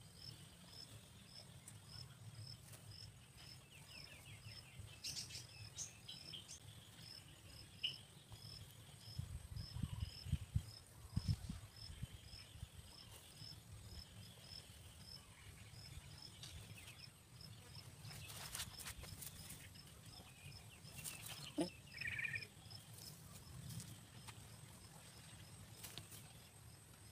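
Faint, steady insect chirping, a short high chirp about three times a second, with some low rumbling about ten seconds in and a short bird-like chirp near the end.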